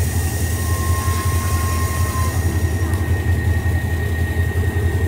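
GE diesel-electric locomotive 4023 running at a standstill beside the platform, a loud steady low engine rumble with a faint thin whine above it.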